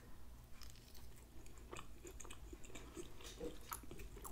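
A person chewing a mouthful of soft, moist cornbread dressing, quiet, with small wet mouth clicks scattered throughout.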